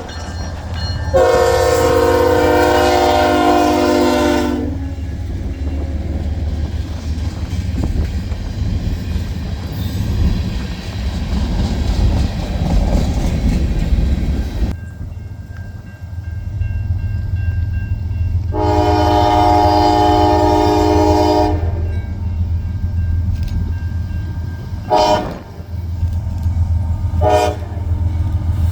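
Train locomotive's air horn sounding over a steady low engine rumble: a long blast about a second in, another long blast about two-thirds of the way through, then two short blasts near the end.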